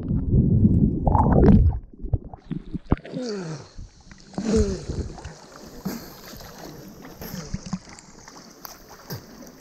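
Muffled underwater rush of churning, aerated water and bubbles around a submerged waterproof action camera, loud and deep, cutting off about two seconds in. After that, water gurgles and sloshes around the camera at the surface, with bubbly sounds that drop in pitch.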